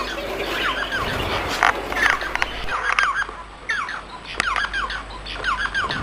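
Bengalese finch (society finch) singing: a short phrase of curved, gliding notes repeated about once a second over softer chattering.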